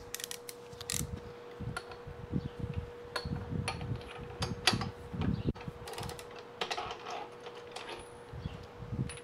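Irregular mechanical clicks, creaks and low knocks from a milling machine spindle working a tap held in its collet, starting a thread in a bolt hole of an aluminium motorcycle cylinder. A steady hum runs underneath.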